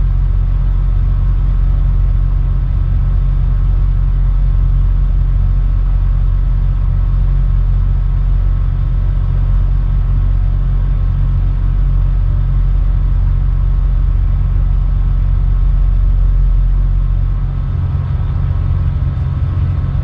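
Tugboat diesel engines running steadily, heard from the wheelhouse as a loud, deep drone with a few low tones in it. Near the end the deepest part of the drone weakens.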